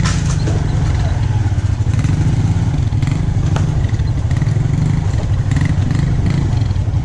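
Motorcycle engine running steadily at low speed on a rough dirt path, with a few sharp knocks and rattles from the bike over the bumps.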